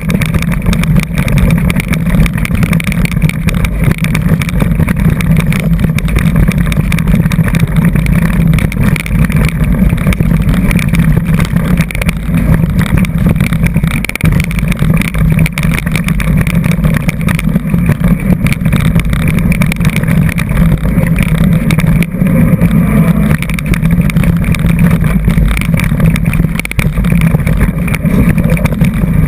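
Mountain bike rolling fast down a rocky dirt trail: a steady loud rumble of tyres on dirt and stones with constant small rattles and knocks from the bike, mixed with wind buffeting the microphone.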